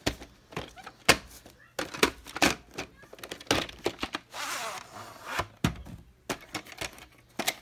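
A VHS tape being handled: a run of sharp clicks and knocks from the plastic cassette and its cardboard sleeve, with a brief scraping slide about four and a half seconds in as the cassette comes out of the sleeve.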